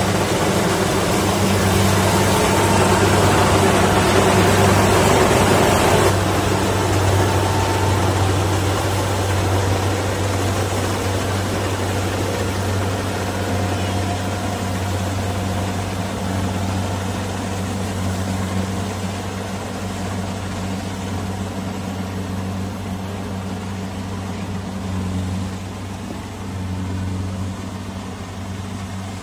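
Kubota rice combine harvester's diesel engine and threshing machinery running with a steady hum as it harvests. Loud close up for the first six seconds or so, then gradually fainter as the machine moves away.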